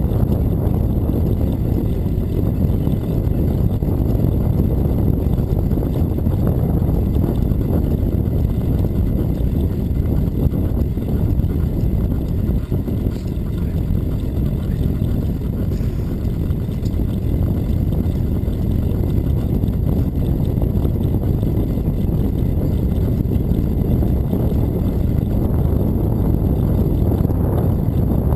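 Steady low rumble of wind buffeting the microphone and tyres rolling on asphalt, heard from a camera riding on a moving bicycle.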